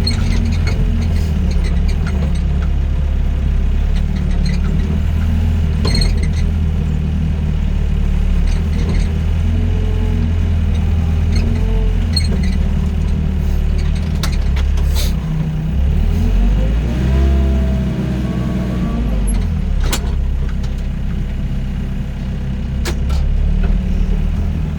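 Doosan DX55 mini excavator's diesel engine running steadily under working load, with a whine that rises and falls as the hydraulics move, and a few sharp metal clanks.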